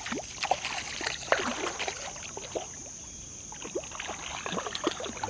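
A small hooked rainbow trout splashing at the water's surface as it is reeled in to the bank, in short irregular splashes.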